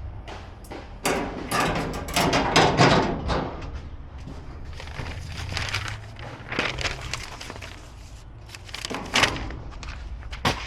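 Bursts of knocking and clattering from gas grill parts being handled during assembly, over a low steady hum.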